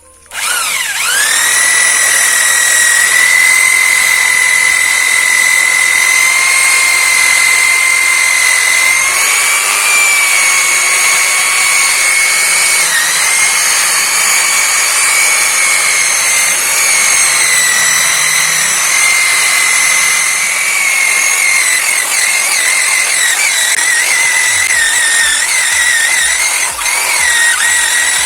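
Electric drill used as a polisher starts about half a second in, its whine rising quickly as it spins up. It then runs steadily, buffing rubbing compound on a motorcycle's metal engine side cover, and its pitch wavers and dips in the second half as the load on the pad changes.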